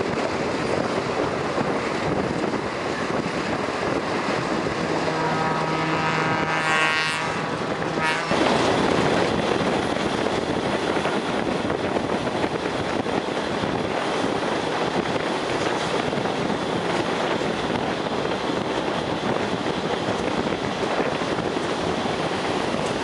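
Passenger train running along the track, its rolling and wind noise heard from a car window. About five seconds in, a train horn sounds for about three seconds.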